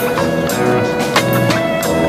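Music with a steady drum beat, about one stroke every two-thirds of a second, over held tones and bass notes.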